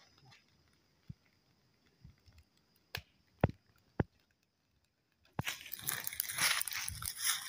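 A few sharp cracks in near quiet. About five seconds in, the dense, loud crackling of a blazing fire of dry sticks and twigs starts suddenly and keeps going.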